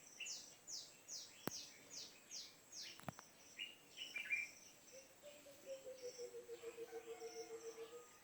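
Faint early-morning birdsong. One bird repeats quick, high, falling chirps about three times a second, other chirps follow, and from about five seconds in a lower pulsing call runs on.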